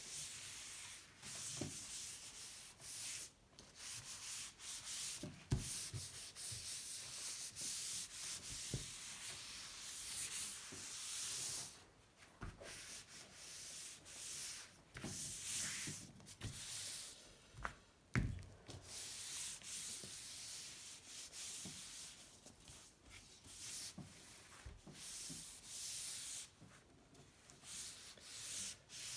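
Hand rubbing in uneven strokes, a cloth wiping dry the freshly wet-sanded paint on a steel bicycle frame, with a few sharp knocks.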